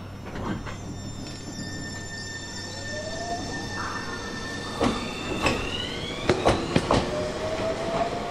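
Tobu 30000-series electric train pulling away: its VVVF inverter traction motors give a whine that rises in pitch as it gathers speed. From about five seconds in come several sharp clacks of the wheels over rail joints.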